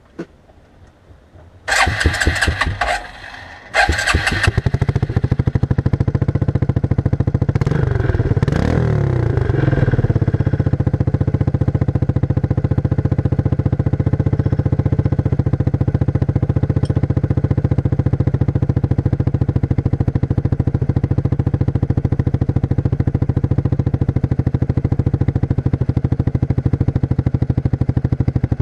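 1994 Suzuki King Quad 300's single-cylinder four-stroke engine being started through its stock muffler with the baffles removed and the inside modified. A first burst of a little over a second dies away, then the engine catches on the second try. The revs rise and fall briefly before it settles into a steady, loud idle.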